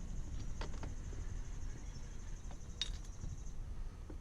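A few light metallic clicks and taps, the clearest about three seconds in, as the outboard's transom mount bracket is worked onto the engine. A low rumble sits under them.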